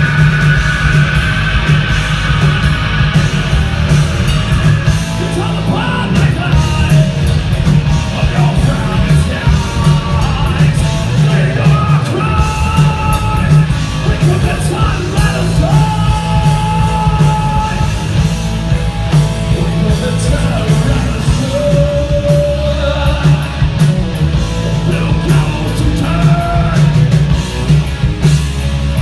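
Heavy metal band playing live, heard from the crowd: distorted electric guitars, bass and drums, with a singer's vocals and long held notes over the top.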